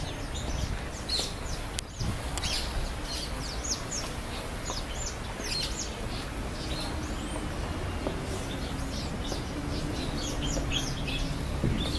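Small birds chirping: many short, high calls, each dropping quickly in pitch, scattered throughout over a low, steady outdoor rumble.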